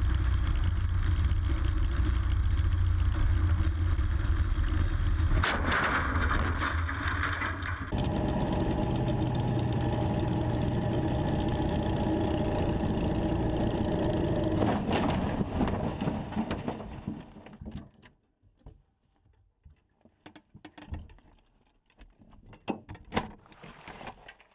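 Small aircraft's engine and propeller droning steadily, heard from an onboard camera, with the sound shifting a couple of times. About seventeen seconds in it fades out, leaving scattered knocks and rattles.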